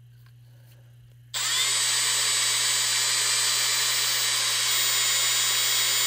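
Power drill spinning a reamer inside a Sheaffer Balance fountain pen barrel, starting about a second in and running steadily with a high whine, then cutting off at the end. The reamer is cutting out the old fiber and rubber packing of the vacuum-filler to make room for an O-ring.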